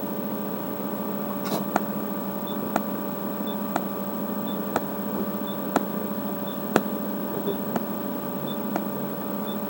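Flash-lamp-pumped Nd:YAG laser firing pulse after pulse, a sharp click about once a second, each followed by a short high beep, over the steady hum of its power supply and cooling. The slow pulse rate comes from recharging its capacitors between flashes.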